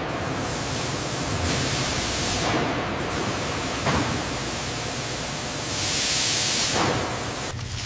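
A steady rushing hiss that swells louder twice, about a second and a half in and again near six seconds.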